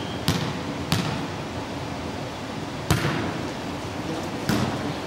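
Volleyball struck by players' hands and forearms during a serve and rally: four sharp slaps, the first two under a second apart and the others about two and one and a half seconds later, each echoing in a large sports hall.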